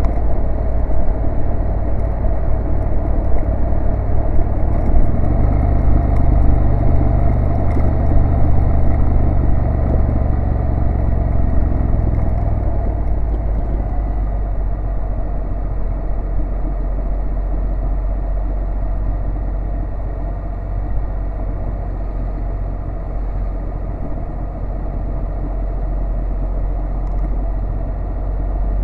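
2014 Honda NC750S DCT's parallel-twin engine running on the move, under a steady road and wind rumble on the bike-mounted microphone. From about five seconds in the engine note stands out more clearly for several seconds, then settles back into the rumble.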